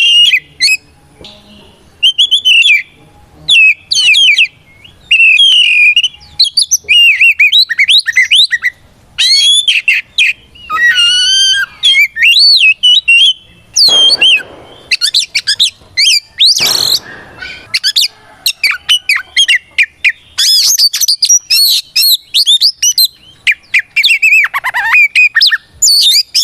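Oriental magpie-robin singing continuously: rapid, varied whistled phrases with a couple of harsh, rasping notes in the middle.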